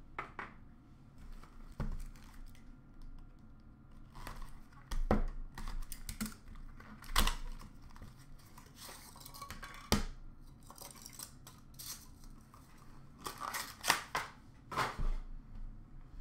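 Cardboard and plastic packaging of a trading-card box being handled and opened: scattered rustles, crinkles and sharp taps and clicks, a few of them louder.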